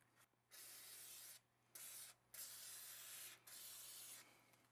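Aerosol spray can fired through a red extension straw in four short bursts of hissing spray, each about half a second to a second long, onto the M10X rifle's bolt and bolt carrier to clean them.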